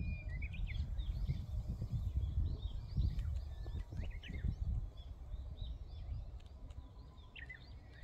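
Wind blowing in gusts across the microphone, easing after about five seconds, with several small birds chirping and twittering in quick short calls throughout.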